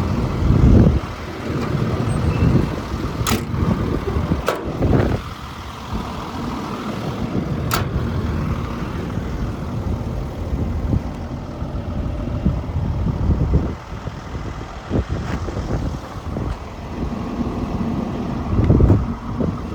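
Diesel engine of a Volvo EC220E track excavator running at idle, a steady low rumble, with a few sharp clicks and knocks.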